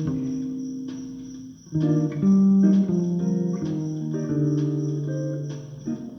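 Bass guitar played solo: plucked notes and double-stops in its upper register. A chord rings out and fades about a second and a half in, then new notes are plucked and left to sustain.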